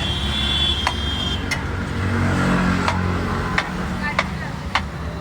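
Road traffic running steadily, with a low engine hum, and sharp clinks every half second to a second from the stall.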